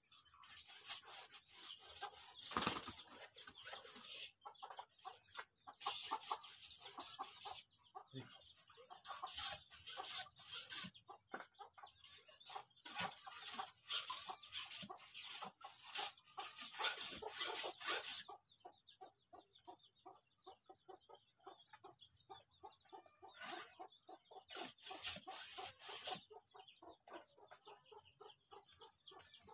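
Chickens clucking in short repeated notes, about three or four a second, with loud bursts of scratchy rustling in the first two-thirds and again near the end.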